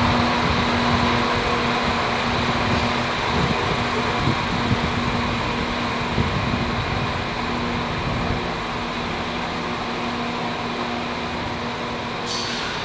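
Irish Rail 22000 Class InterCity diesel railcar standing at the platform, its underfloor engines and cooling fans running with a steady hum and a held low tone. A few light knocks in the middle, and a brief sharp hiss near the end.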